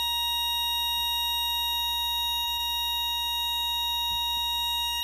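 Small loudspeaker driven by a 555 timer astable oscillator, sounding a steady high-pitched tone from its square-wave output.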